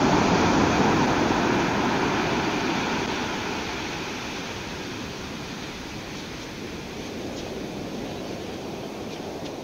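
Sea surf washing up a beach: a steady rush of breaking waves and foam, loudest at the start and slowly fading away.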